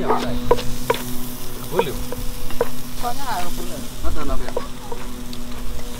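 Meat sizzling on a grill, a steady hiss, with a few sharp knocks of a wooden pestle in a mortar in the first two seconds.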